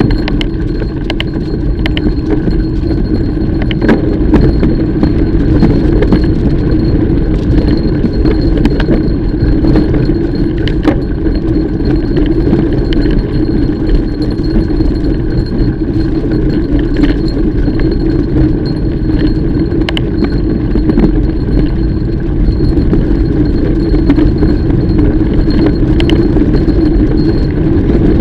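Mountain bike ridden on a rough trail: a steady loud rumble of riding noise with frequent metallic clinks and rattles, several a second at times.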